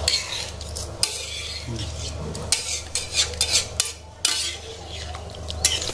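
A metal utensil stirring food in a cooking pot, with irregular scrapes and clinks against the metal, over a steady low hum.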